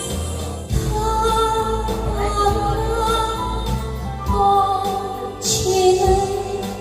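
Music: a slow ballad's accompaniment with a smooth, held melody line over sustained bass notes, during a passage between sung verses.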